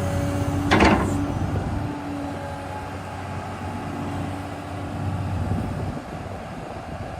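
Volvo EC300DL excavator's D8H diesel engine running with a steady hum. A single sharp, loud knock rings out about a second in.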